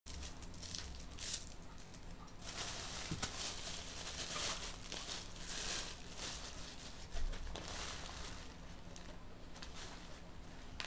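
A thin plastic carrier bag and the paper wrapper of a takeaway food parcel crinkling and rustling in irregular bursts as they are pulled open and unfolded by hand, with a light knock about seven seconds in.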